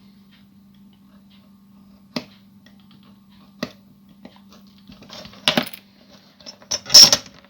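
Sharp clicks and clattering knocks of hand tools and a small plastic part being cut and handled on a workbench, two single clicks and then a cluster of knocks, with the loudest clatter near the end, over a steady low hum.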